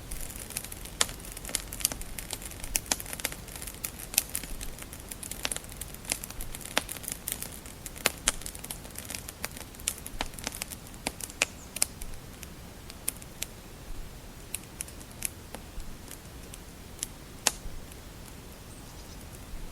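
Wood fire crackling in a fireplace: sharp, irregular pops and snaps over a steady low rumble of the flames, thick in the first half and thinning to a few single pops later.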